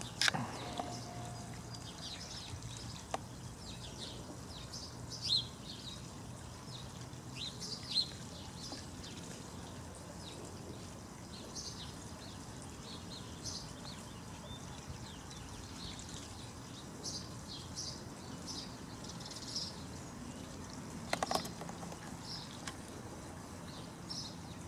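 Small birds chirping now and then in the background over a steady outdoor hiss, with a few faint clicks, a cluster of them about 21 seconds in.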